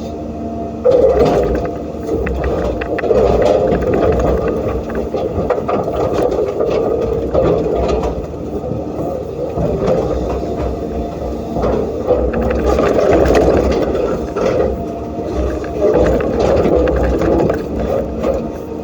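Diesel excavator working under load, its engine swelling and easing every few seconds as it digs, with scattered scrapes and knocks of stones and sand.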